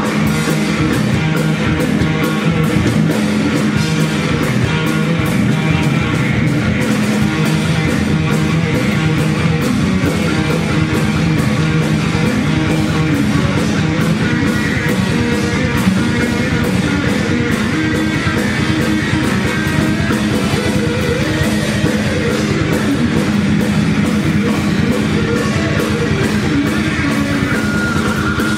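Live rock band playing loud: electric guitar over drums and bass guitar, with no pause.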